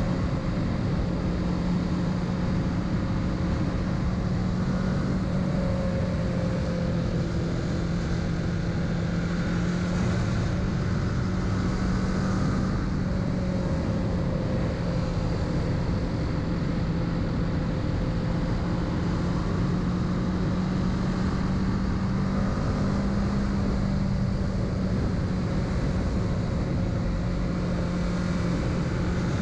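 Kawasaki Z650's parallel-twin engine running at a fairly steady cruising speed, heard from the rider's position, over a continuous rush of wind and road noise.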